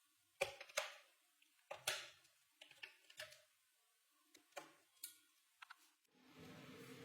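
Faint, irregular clicks and light knocks, about a dozen spread over six seconds, then a steady hum comes on near the end and keeps going.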